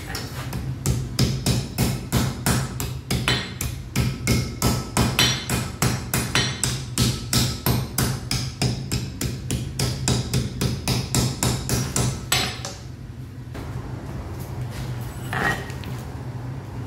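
Blacksmith's hammer striking iron on an anvil in a fast, even run of blows, about three or four a second, stopping about twelve seconds in. A steady low hum runs underneath.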